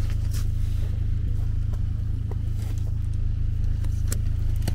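A steady low motor rumble, like an engine idling, with a few light clicks over it.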